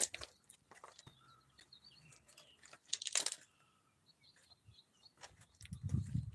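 Scattered faint crunching and rustling with a few faint bird chirps, a short hiss about three seconds in, and low rumbling noise near the end.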